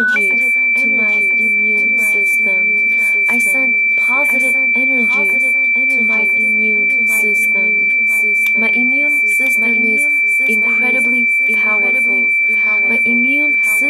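A steady, high-pitched pure tone that steps up in pitch just after the start and then holds, over a busy background of constantly shifting pitches.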